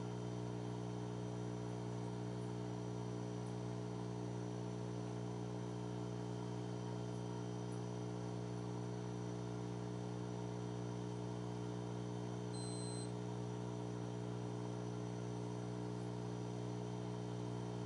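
A steady electrical hum with a buzzy stack of even overtones, unchanging in pitch and level, with a faint short high beep about two-thirds of the way through.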